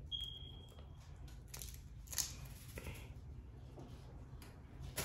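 Boiled shrimp being peeled by hand: scattered crackles and snaps of shell, with the sharpest crack about two seconds in.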